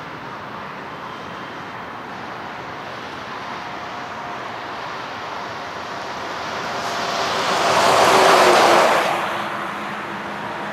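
Boeing 777 freighter's two GE90 turbofan engines as it touches down and rolls out down the runway. A steady jet roar swells to its loudest about eight seconds in, then dies down.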